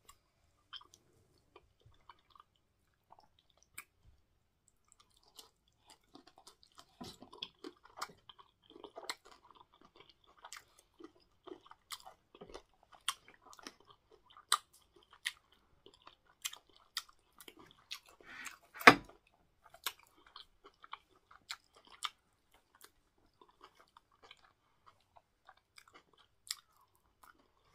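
A person chewing soft cocoyam fufu and bitter leaf soup eaten by hand, close to the microphone: irregular short mouth clicks and smacks, thickest in the middle, with one sharper, louder smack about two-thirds of the way through.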